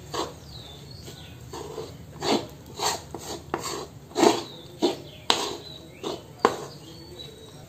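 Wooden spatula stirring and tossing cooked fried rice in a metal kadhai, giving irregular short scrapes and knocks against the pan, about one or two a second.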